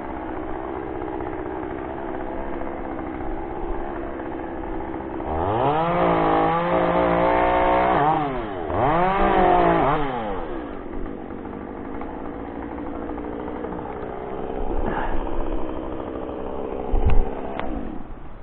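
Eacho T2511 chainsaw idling, then revved up twice, each time for about two seconds, before dropping back to idle. A few sharp knocks near the end.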